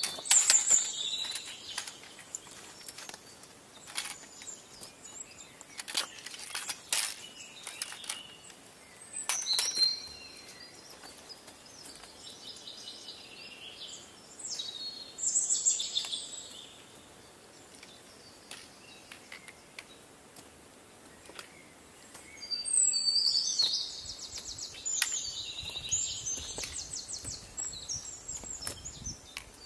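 Songbirds singing in short bursts, with a fast trill near the end. Sharp knocks and clicks from boots and a trekking pole on rock come in the first part.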